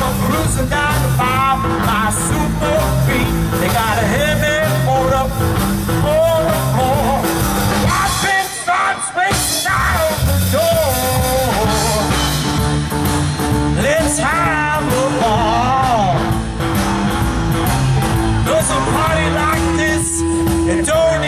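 Live rock band playing through a PA: a man singing over electric guitar, bass guitar and drums, with a brief break in the band about nine seconds in.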